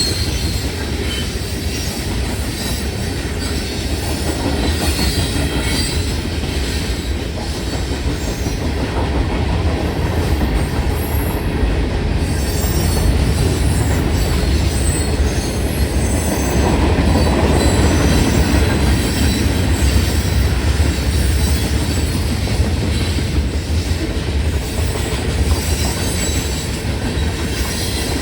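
Train cars rolling through a road crossing: a steady rumble of wheels on the rails that swells a little around the middle.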